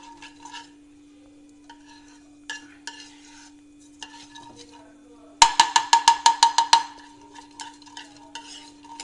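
Mustard seeds sputtering and crackling in hot ghee in a kadhai as a metal spatula stirs them, with a quick run of about a dozen ringing metal strokes of the spatula against the pan a little past halfway.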